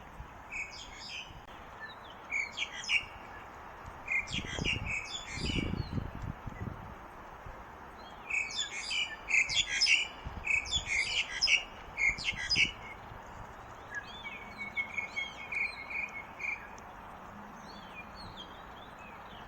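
Songbirds chirping in short bursts of high notes, busiest around the middle, with a thin steady trill near the end.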